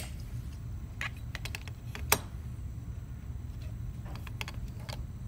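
Scattered light clicks and taps from a hand handling a dental articulator holding wax denture setups: a few small clicks, one sharper click about two seconds in, and another short cluster near the end. A steady low hum runs underneath.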